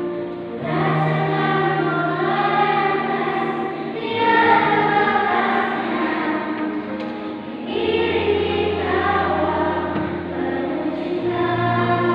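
A children's school choir singing, with the notes changing to new phrases about every three to four seconds.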